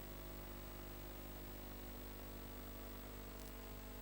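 Steady low electrical hum with a faint hiss, the mains hum of the sound or recording system, unchanging throughout.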